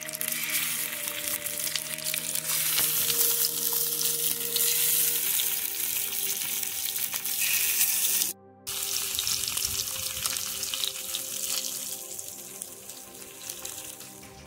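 Turmeric-coated fish pieces sizzling and crackling in hot oil in an iron frying pan, with sustained background music tones underneath. The sound cuts out for a moment about eight seconds in, and the sizzle fades off near the end.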